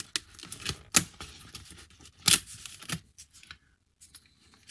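Paper and cardboard puzzle parts being handled on a table: a few sharp clicks, the loudest about a second in, and a short scrape a little after two seconds.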